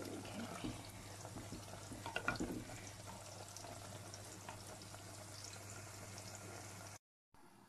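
Meat frying in oil and spices in a clay pot, a faint sizzle while a wooden spoon stirs it, with a few scrapes and knocks of the spoon against the pot about two seconds in. The sound cuts off abruptly about seven seconds in.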